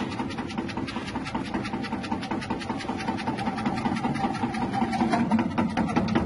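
Electric potato-chip slicer, its 180-watt motor running steadily while a potato is pressed into the spinning blade, with a rapid, even clatter of slicing over the motor's hum.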